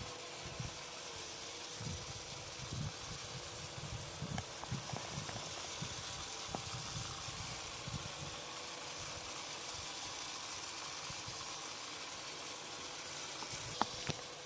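Veniibot N1 Max robot vacuum running on standard suction power: a steady fan hiss with a faint steady hum, low irregular knocks through the middle, and a couple of sharp clicks near the end.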